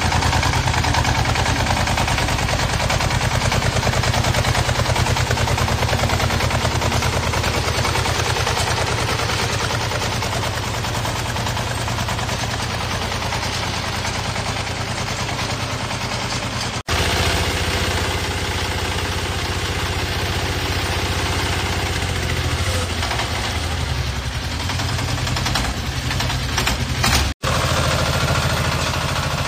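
Small engines of compact tracked machines running steadily with a rapid, even knocking beat: first a crawler tractor's engine, then, after the second brief cut, a tracked dumper's single-cylinder diesel. The sound drops out for an instant twice, at the edits.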